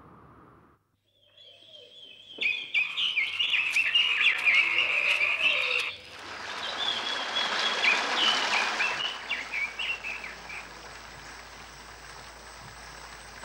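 Dense chorus of forest animal calls, frogs and birds among them, coming in after a brief hush and thinning out over the last few seconds.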